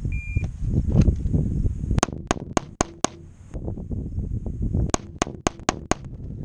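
A shot timer beeps once, then a Shadow Systems MR920 9mm pistol fires five quick shots, pauses about two seconds for a reload, and fires five more quick shots.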